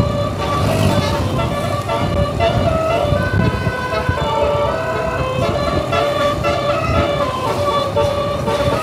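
Bus telolet horn playing a tune: a set of musical air horns sounding a run of held notes that step from pitch to pitch every fraction of a second, over a low rumble.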